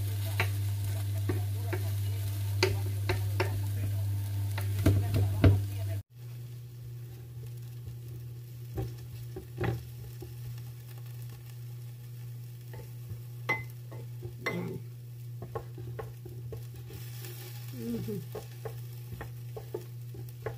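Egg roll sizzling gently on a hot griddle pan while spatulas and a knife scrape and tap against the pan as it is shaped, over a steady low hum. The sound drops abruptly about six seconds in, then the light sizzle and occasional taps go on.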